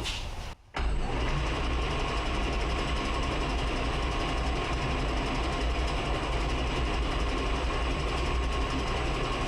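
Clausing metal lathe switched on, its motor and spindle drive starting abruptly about a second in and then running steadily with a low hum and a faint whine, in its higher speed range.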